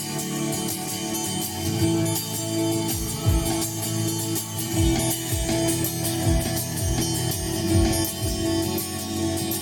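Live instrumental music led by guitar, the intro to a Christmas song, with a low beat coming in about three seconds in.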